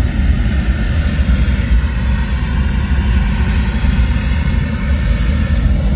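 Concert PA system playing a steady rushing test noise, heaviest in the bass, used to measure and set the delay between the left and right main speakers during system tuning.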